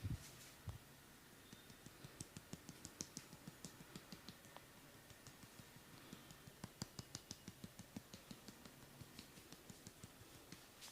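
Quiet, rapid percussive massage taps on the body, about three to four a second, in two runs with a short pause about halfway, after a dull thump or two at the start.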